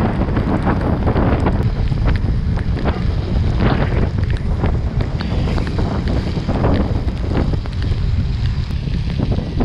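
Wind buffeting the microphone of a motorbike riding in the rain: a loud, steady low rumble with scattered sharp crackles over it.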